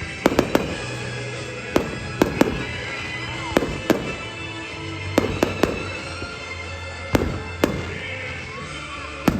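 Aerial fireworks bursting: a dozen or more sharp bangs, coming irregularly in small clusters about every second.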